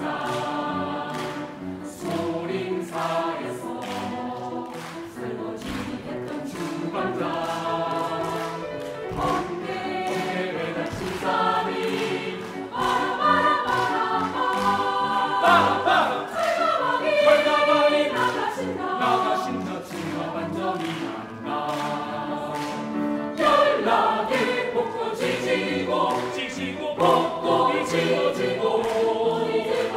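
Choir singing a lively, rhythmic song over a steady beat, swelling loudest about halfway through.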